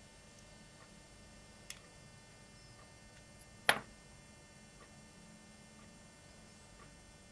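Faint small clicks and ticks from hand work on the insides of a second-generation iPod nano with a thin metal tool. There is one sharp click about three and a half seconds in, over a faint steady hum.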